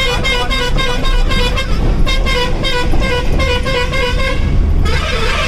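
A vehicle horn sounding in quick, evenly repeated short toots, a brief break about two seconds in, then another run that stops about four seconds in, over the steady low rumble of a truck running on the road. A short hiss follows near the end.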